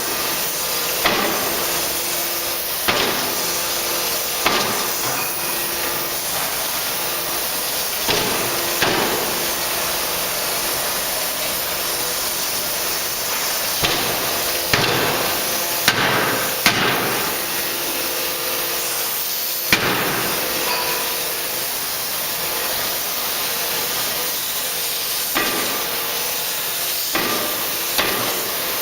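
A 75 kJ (3-tonne) die forging hammer strikes hard at uneven intervals, some blows coming in pairs about a second apart. Between the blows there is a steady hiss of machinery.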